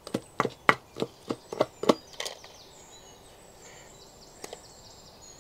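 Wooden pestle pounding boiled gongura leaves and green chillies into a paste in a stone mortar: quick dull thuds, about four a second, stopping about two seconds in.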